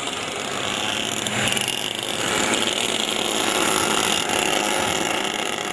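Racing karts' small engines buzzing at high revs as several karts drive past on the track. The sound swells twice in the first half and fades toward the end.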